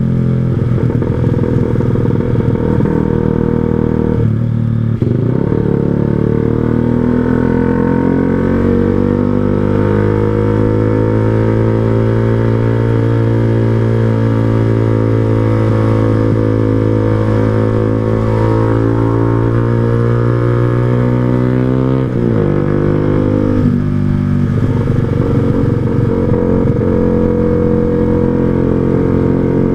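Yamaha R15 V2's 150 cc single-cylinder four-stroke running under way through an aftermarket Proliner TR1R Short silencer on a 3Tech Racing header. The engine note holds nearly steady for long stretches, breaks briefly about four seconds in, and drops suddenly in pitch a little past the middle.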